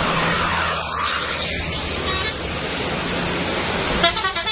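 Road traffic noise with a steady engine hum, then about four seconds in a bus's loud horn starts blaring with a wavering tone.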